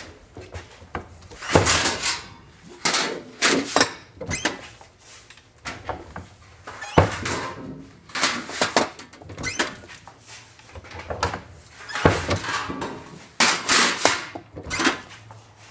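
Sheet metal being turned on a bar folder and its edges bent over: irregular clanks and thunks of the folder and the sheet, with the sheet rattling as it is handled.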